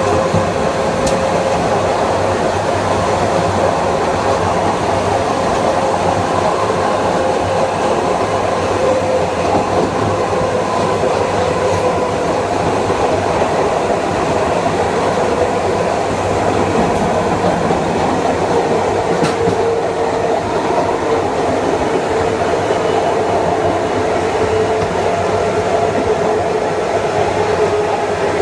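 Kawasaki M9 electric multiple unit under way, its Mitsubishi IGBT-VVVF inverter and AC traction motors giving a steady whine over the rumble of wheels on rail. The whine slowly falls in pitch as the train loses a little speed.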